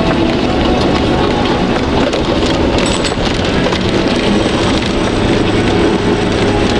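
Off-road 4x4's engine running steadily, heard from inside the cab, with muddy water spraying against the body and windscreen as it drives through flooded mud.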